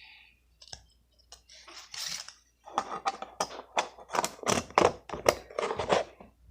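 Slime and a plastic bug magnifier container being handled as the slime is pressed in: a brief hiss, then from about three seconds in a dense run of small, irregular clicks and crackles.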